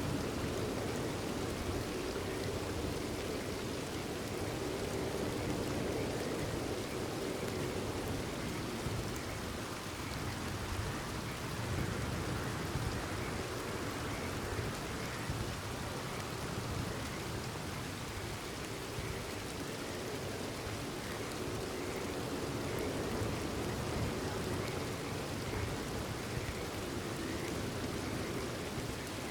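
Steady rain falling, with faint frog calls repeating through it.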